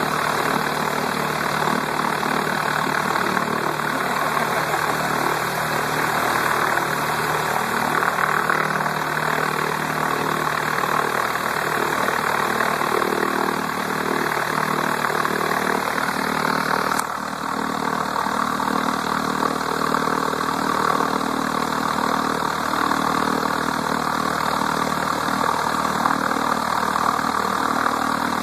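Citabria light aircraft's piston engine and propeller idling steadily on the ground, heard from just beside the plane. The level dips briefly about two-thirds of the way through.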